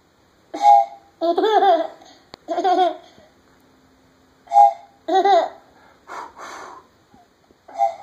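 A toddler blowing short toots on a plastic toy train whistle and laughing in bursts between the toots.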